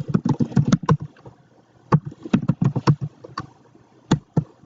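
Computer keyboard typing in quick bursts of keystrokes: a fast run in the first second, another about two seconds in, then a couple of single key presses near the end.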